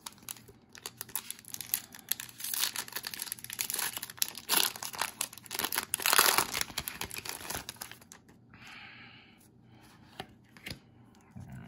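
A Pokémon booster pack's foil wrapper crinkling and being torn open by hand, loudest about six seconds in, then a softer rustle as the cards come out.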